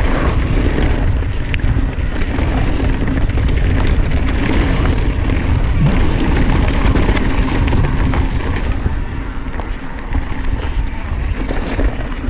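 Santa Cruz Hightower LT mountain bike running fast down dirt singletrack: tyres rolling over the trail, chain and frame rattling over bumps, and wind buffeting the action-camera microphone.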